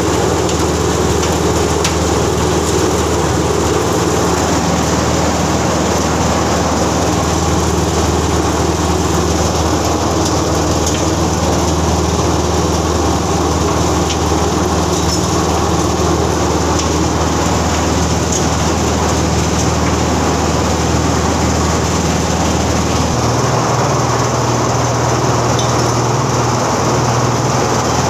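Motor of a drum-type chicken plucking machine running with a steady hum; the pitch of the hum shifts about 23 seconds in.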